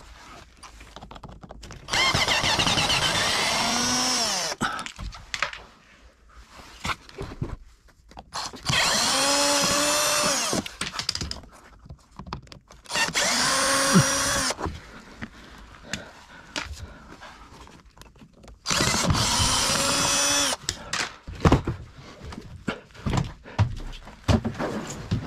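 Handheld power drill/driver running in four short bursts of about two seconds each, the motor pitch sagging and recovering within each run, with light clicks and knocks of handling between the runs.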